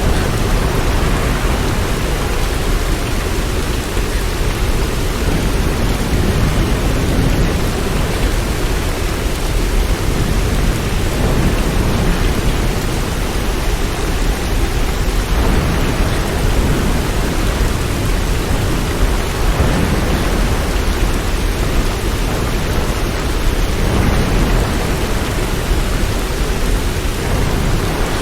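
Steady rain: a dense, even hiss with a deep low rumble underneath and no separate drops or claps standing out.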